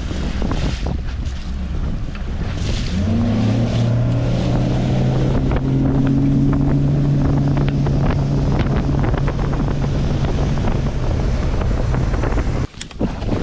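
Bass boat's outboard engine accelerating hard from low speed on a hole shot, the hull jumping up on pad. The engine's pitch rises sharply about three seconds in, then holds steady at speed. Heavy wind buffets the microphone and water splashes against the hull, and the sound drops out suddenly near the end.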